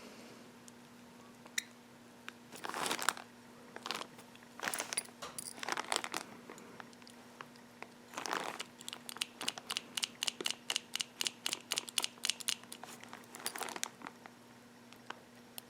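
Small screwdriver working a screw into the body of a model train locomotive: a few short scraping bursts, then a quick even run of sharp clicks, about five a second, for several seconds.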